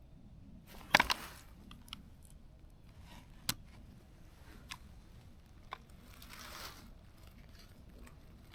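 Close handling noise: a quick cluster of sharp clicks about a second in, a few single clicks after, and a soft rustle around two-thirds of the way through.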